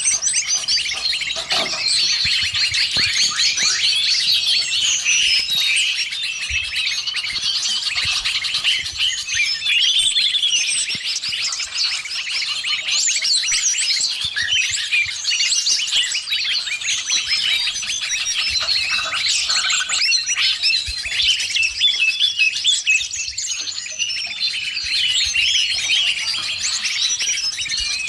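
A dense, continuous chatter of many birds calling over one another, full of rapid high chirps, trills and whistles: a mixed 'noisy birds' lure recording (burung ribut) combined with cucak ijo (greater green leafbird) calls, used to call in wild birds.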